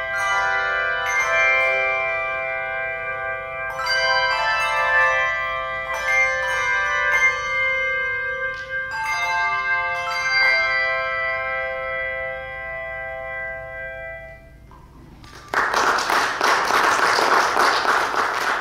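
Handbell choir ringing a hymn: struck chords of many bells that ring on and overlap, the last chord fading away over several seconds. About fifteen seconds in, the congregation breaks into applause.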